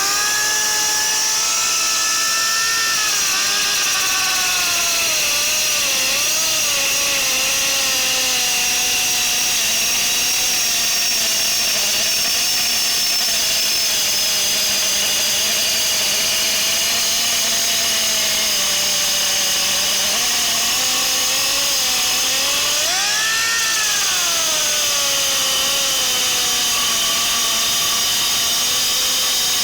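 7-inch pneumatic grinder running under air, a steady high whine whose pitch wavers, sagging and recovering, with a brief swing up and back down about three-quarters of the way through.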